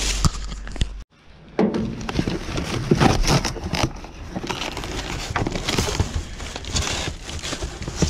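Plastic bags and bubble wrap rustling and crinkling as a cardboard box is pulled about among them, with scattered knocks, after a brief break about a second in.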